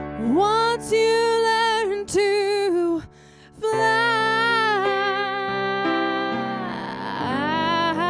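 A woman singing long held notes with vibrato over sustained chords on a Roland RD-300 digital stage piano, with a brief break about three seconds in.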